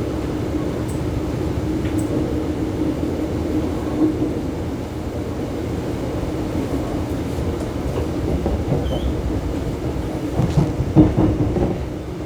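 Electric train running on the rails, a steady hum over low rumble, with a few louder wheel knocks on the track about eleven seconds in.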